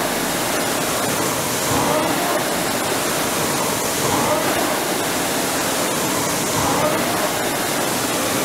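Concept2 indoor rower's air flywheel whooshing as it is rowed steadily. The fan noise swells with each drive, about one stroke every two and a half seconds (roughly 25 strokes a minute).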